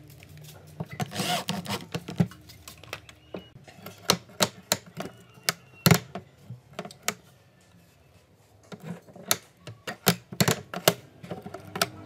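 Homemade steel door latch being worked by hand: irregular sharp metallic clicks and clacks as the bolt slides and the hinged steel plates knock against it, with a short pause about two-thirds through.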